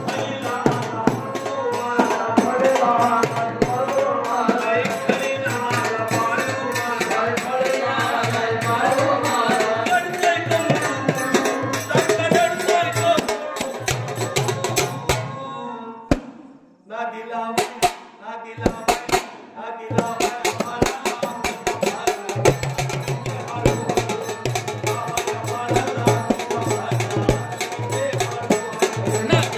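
An elderly man singing a folk song to a hand-drum beat, the drum strokes steady under his voice. The music breaks off for a moment about halfway through, then picks up again.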